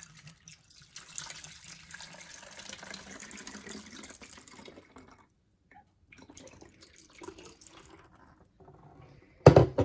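Cool tap water running into the Force of Nature electrolyzer's vessel to fill it to the line, stopping about five seconds in. Then come small handling sounds, and a loud thump near the end.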